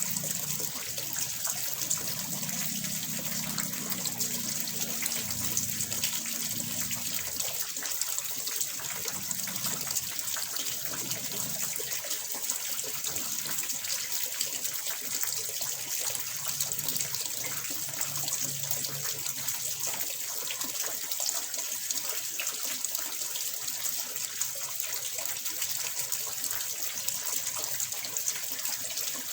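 Running water splashing steadily into a small fish pond, an even, bright hiss with no pauses.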